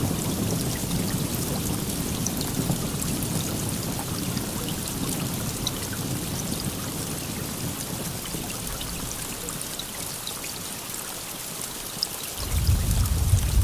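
Steady rain, with many separate drops ticking through the hiss. A low thunder rumble fades away over the first ten seconds, and a new, louder low rumble starts suddenly near the end.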